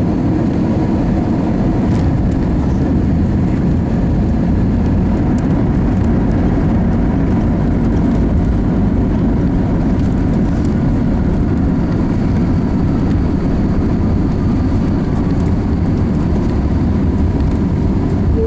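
Steady, loud low rumble of engine and airflow noise in the cabin of an Airbus A321 with IAE V2500 engines as it lands.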